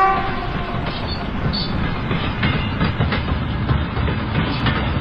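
Model diesel locomotive and passenger coaches running on plastic track: a steady rumble of motor and wheels with faint irregular clicks over the rail joints. A horn note dies away right at the start.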